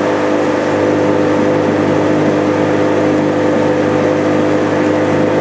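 A vehicle's engine running at a steady cruising speed: a loud, even drone with a constant hum.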